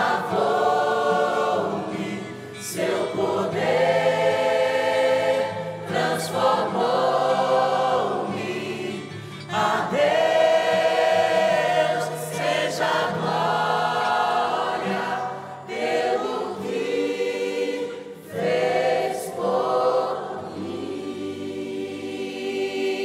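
Mixed church choir singing a gospel song, holding long chords in phrases with short breaks between them.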